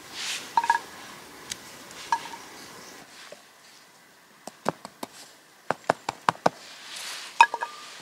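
A knife cutting raw, damp chaga on a wooden cutting board, with scraping and a quick run of about seven sharp knocks of the blade on the board. Chaga pieces clink into a metal bowl with a short ringing tone, twice in the first couple of seconds and once, loudest, near the end.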